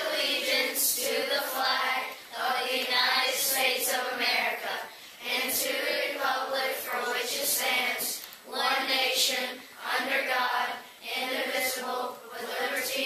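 A group of voices delivering the Pledge of Allegiance together in unison, phrase by phrase with short pauses between the lines.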